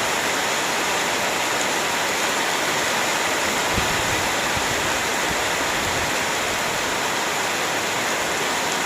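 Heavy rain falling in a steady, dense hiss, with a few brief low thumps around the middle, the strongest about four seconds in.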